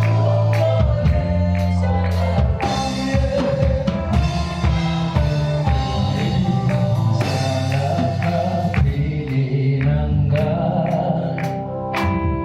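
Live gospel worship music: a band with bass, drum kit and sung vocals.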